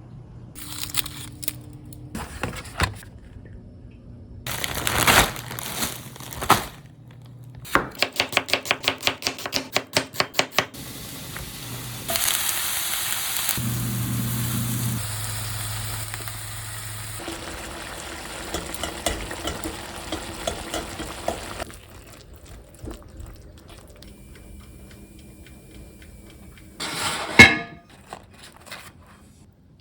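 Kitchen cooking sounds: scattered clinks and knocks of utensils and cookware, then a run of about ten even knocks, about three a second. After that comes a stretch of steady sizzling as food fries, and a single loud knock near the end.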